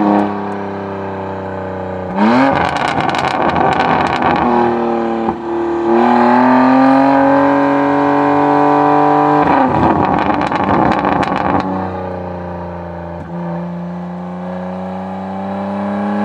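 BMW G80 M3 Competition's twin-turbo inline-six running through a Fabspeed turbo-back exhaust with the valves open, revving up and down as it is driven. A sharp rev about two seconds in breaks into a stretch of crackling. A steady rising pull from about six seconds ends in another burst of crackles about halfway through. After that the pitch falls away, then climbs again near the end.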